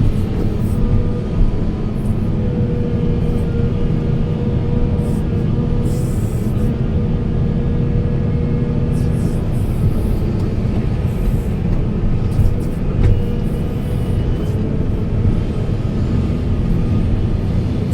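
Large hydraulic excavator's diesel engine running steadily under load, with a faint steady whine over the engine drone and a few sharp clicks.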